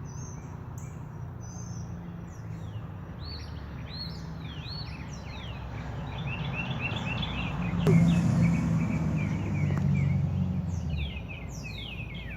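Small birds singing, a rapid run of repeated high chirps and short arched notes. Midway a low engine rumble of a passing vehicle swells, loudest about eight seconds in, and stops near the end; the owner wonders if it was a school bus.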